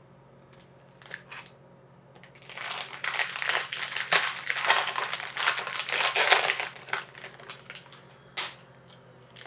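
Plastic wrapping on a pack of 2018 Bowman baseball cards crinkling as it is torn open by hand: a few light clicks, then about five seconds of dense crinkling, and a single short tap near the end.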